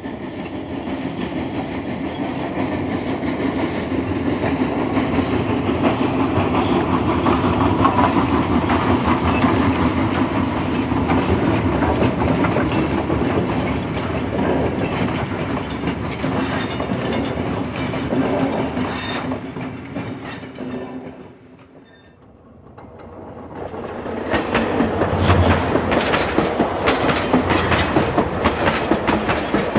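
A train running on rails, a steady rattle of wheels over the track. It fades away about 21 seconds in and builds back up a couple of seconds later, with sharper clicks after that.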